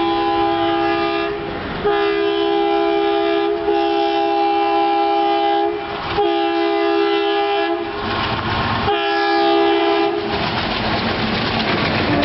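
WDP3A diesel locomotive's multi-tone horn sounding in a string of long blasts with short breaks. About ten seconds in the horn stops, and the express train rushes past at speed with wheels clattering over the rail joints.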